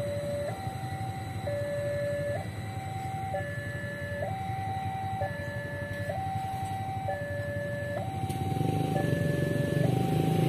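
Level crossing warning alarm sounding a two-tone hi-lo signal, the two tones alternating about once a second. Near the end, the low rumble of the approaching battery tram grows louder beneath it.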